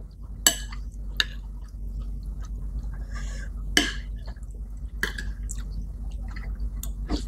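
Spoons and forks clinking against ceramic plates now and then while eating, about five sharp clicks spread over several seconds, with soft chewing between them.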